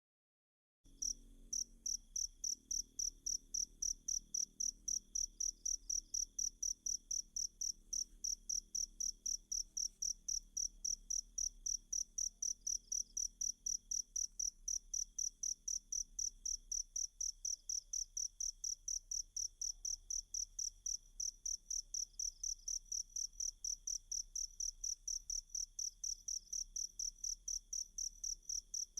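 Cricket chirping in a fast, even rhythm of about three to four high-pitched pulses a second, starting abruptly about a second in.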